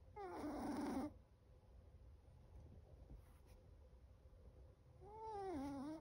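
Chihuahua puppy snoring in its sleep: two pitched snores of about a second each, one at the start and one near the end, each sliding down in pitch.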